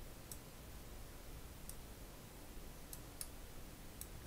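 A handful of faint, sharp computer-mouse clicks, irregularly spaced, as the 3D view is rotated in design software, over faint room hiss.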